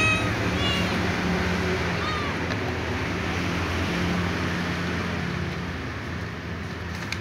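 A ginger kitten meowing a few short times in the first couple of seconds, the last one fainter, begging for dry food; a steady low hum runs underneath.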